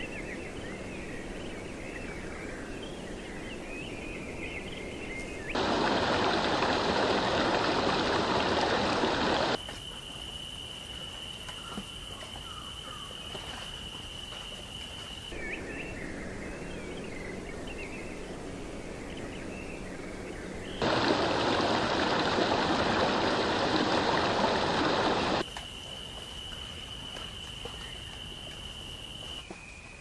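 Nature ambience in spliced sections: small birds chirping faintly, a steady high insect drone, and twice a loud, even rushing of running water lasting about four seconds each.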